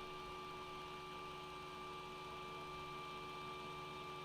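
Axiom 3D printer humming steadily with several unchanging tones from its fans and motors as it starts a print, heating and purging its nozzle.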